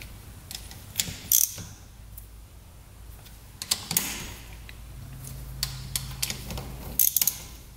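Small hand socket ratchet clicking in short runs, with sharp metal clinks of the wrench and socket, as bolts are run down on a Honda Z50's cylinder head.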